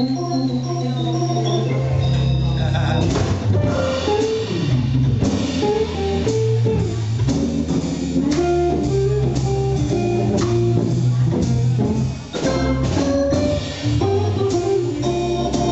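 Organ trio playing a blues live: organ, guitar and drum kit together, with a low bass note held for about the first three seconds before the lines start moving again.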